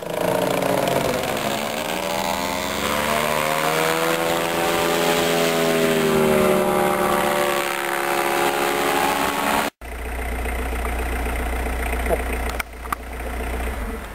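Paramotor engine droning overhead, its pitch slowly rising and then falling as it flies by. It cuts off abruptly about ten seconds in, and a steady low rumble of wind on the microphone follows.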